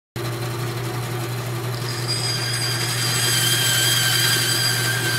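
A small electric machine motor running steadily, starting abruptly: a low hum under a high whine of several steady pitches that grows stronger from about two seconds in.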